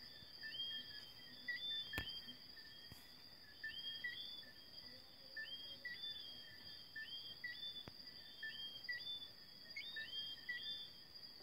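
Night chorus of insects and whistling frogs: a steady high insect trill under many overlapping short calls, each a brief low note sweeping up to a higher whistle. A sharp click about two seconds in.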